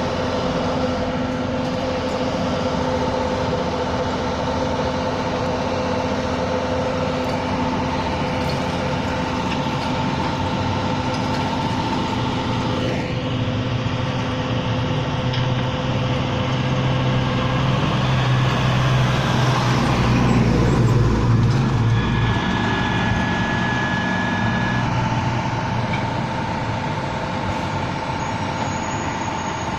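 Old rear-loading garbage truck running, its engine and hydraulic packer giving a steady whining drone. About two-thirds through, a heavy vehicle passes close by, with a louder low rumble before the truck's whine returns.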